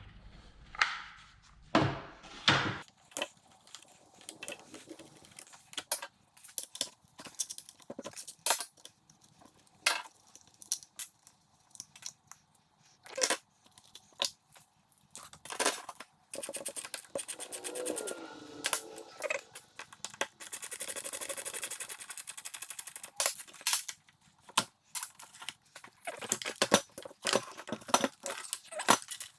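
Hand tools and parts clicking, clinking and knocking while a Stihl MS290 chainsaw is being taken apart, with a stretch of rapid ticking about two thirds of the way through.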